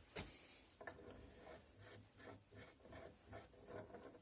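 Faint scraping and rubbing with a few light, irregular clicks: small hand-handling noises in a quiet workshop.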